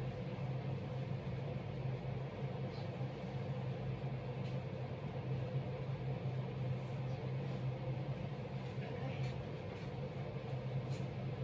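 Steady low mechanical hum with a few faint light clicks.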